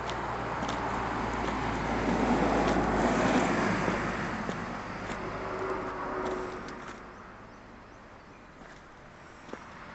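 A road vehicle passing by, growing louder to a peak about three seconds in and fading away by about seven seconds.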